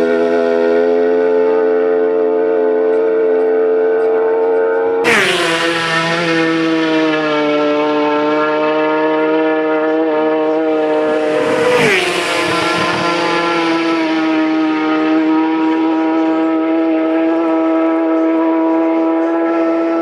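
Racing motorcycles passing at full speed, one about five seconds in and another about twelve seconds in. Each pass is a sudden loud rush, after which the high engine note drops in pitch and holds steady as the bike pulls away up the road.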